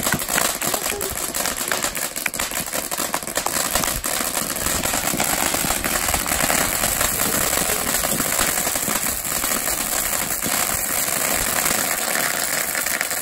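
Ground fountain firework burning, spraying sparks and fire: a steady hissing rush thick with rapid crackles and pops.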